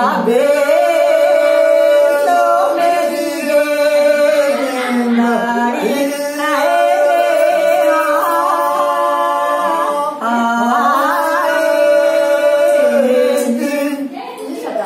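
Unaccompanied singing of a Dogri bhakh folk song: long held, ornamented notes that slide between pitches, with short breath breaks about six and ten seconds in.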